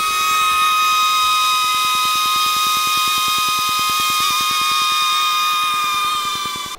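Small toy quadcopter drone's electric propeller motors whining at a steady high pitch, two close tones wavering slightly, over a hiss from the spinning propellers.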